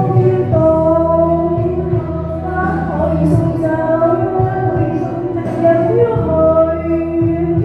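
A Cantonese pop song, with women singing long held notes over a steady bass accompaniment.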